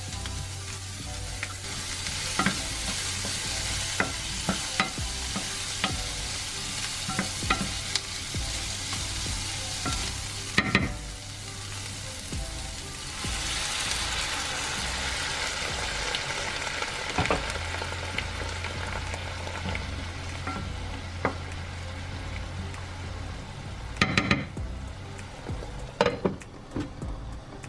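Sliced onions and red peppers sizzling in oil in a nonstick frying pan, with scattered utensil clicks against the pan. About halfway through, water is poured into the hot pan and the hiss grows louder. Near the end, a glass lid is set on the pan with a couple of clattering knocks.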